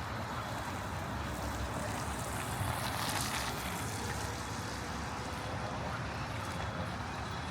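Street ambience with a steady low traffic rumble, and a louder hiss of tyres on the wet pavement swelling about three seconds in as a vehicle passes.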